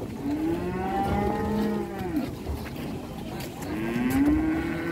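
Cattle mooing: two long, low moos that rise and then fall in pitch. The first fills most of the first half, and the second begins about three-quarters of the way in and carries on past the end.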